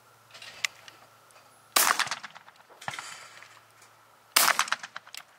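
A Franchi Instinct LX 28-gauge over-and-under shotgun firing at skeet: two sharp shots about two and a half seconds apart, with a softer bang between them.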